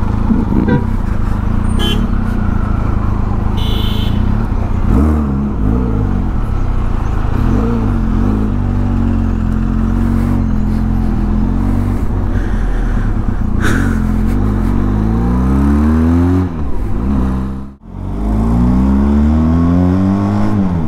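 Motorcycle engine under way, its pitch rising and falling as it accelerates and shifts through the gears, with a steady rush of road and wind noise. The sound drops away sharply for a moment near the end before the engine climbs again.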